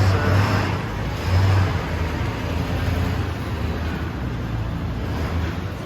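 V6 car driving: steady road and tire noise over a low engine hum, a little louder in the first two seconds.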